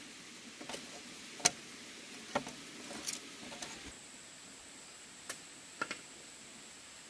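A series of irregular sharp knocks and taps, about eight in all, the loudest about a second and a half in. A thin steady high-pitched tone starts about halfway through.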